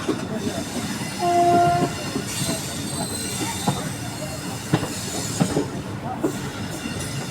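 Train rolling slowly into a station, its wheels clicking over rail joints and points, with a high wheel squeal a little after two seconds in. A short train horn blast sounds about a second in.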